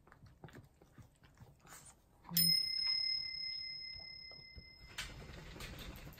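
Faint clicks of a small dog eating from a metal bowl, then about two seconds in a single clear, bell-like metallic ring that fades over a couple of seconds and then cuts off.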